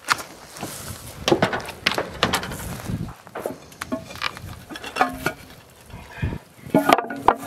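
Irregular knocks, clinks and scrapes of a person clambering down the stairs into a concrete bunker, with no steady rhythm.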